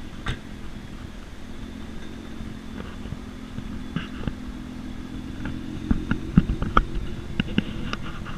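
Nissan GT-R's twin-turbo V6 running at low speed as the car creeps around the driveway, a steady low, throaty exhaust drone. Scattered sharp clicks and pops come in over the last few seconds.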